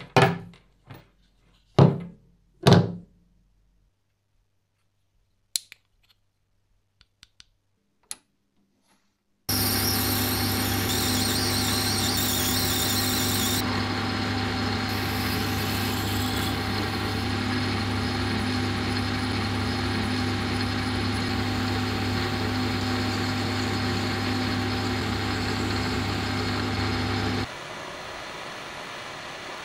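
A few sharp knocks and light clicks, then a workshop machine tool starts abruptly about a third of the way in and runs steadily with a low hum, dropping to a quieter steady run near the end.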